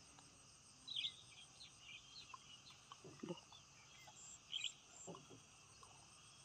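Faint outdoor ambience: a steady insect drone, crickets by their sound, with a few short bird chirps about a second in and again past the middle.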